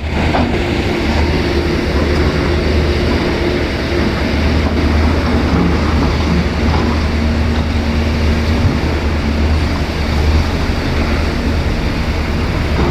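Heavy earthmoving machinery's diesel engine running steadily, with a deep low drone.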